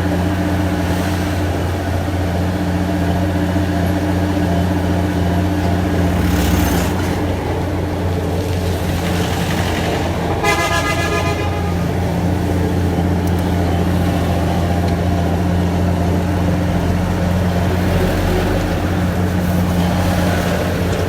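Heavy engine running steadily amid road traffic, with a vehicle horn tooting once for about a second midway.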